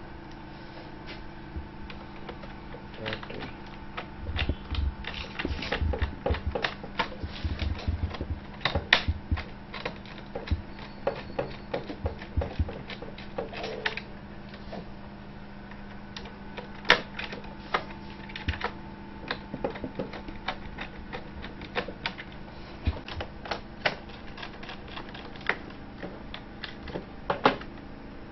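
Irregular clicks, taps and knocks of a small precision screwdriver and hands working on a laptop's plastic base chassis, with a run of heavier knocks from about four to nine seconds in. A steady low hum sits underneath.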